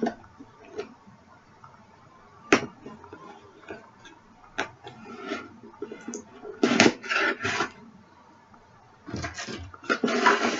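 Scissors cutting the tape on a cardboard shipping box and the box being opened by hand: scattered sharp clicks and knocks, then cardboard and packing paper rustling and crackling in bursts, busiest near the end.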